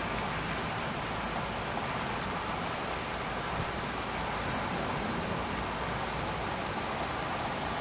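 Storm sound effect of steady heavy rain: an even, unbroken hiss with no thunder.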